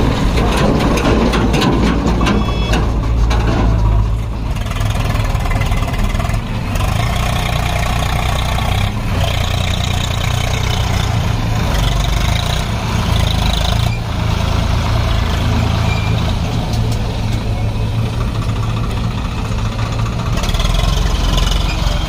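Diesel engines of a Swaraj 744 FE tractor and a JCB 3DX backhoe loader running steadily close by during mud loading, with a few faint knocks.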